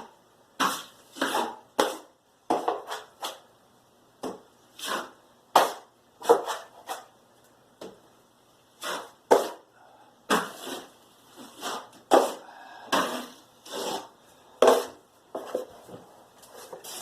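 Drywall knife scraping and spreading joint compound on drywall in short, irregular strokes, about one or two a second, some louder than others.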